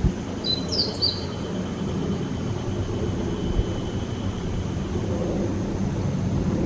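A steady low rumble with a brief bird call, a few quick high chirps, about half a second to a second in.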